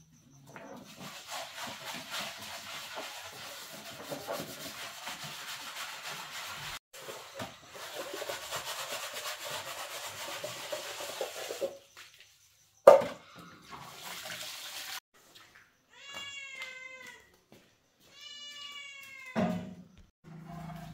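A frying pan being scrubbed by hand with water on a concrete floor, then one loud sharp knock. After that a cat meows twice, each call about a second long and falling in pitch at its end.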